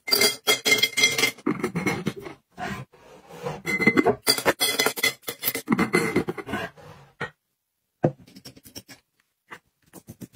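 Wooden clothespins clattering into a glass jar: a dense run of clicks and knocks with glassy clinks. After about seven seconds it thins to a few scattered clicks.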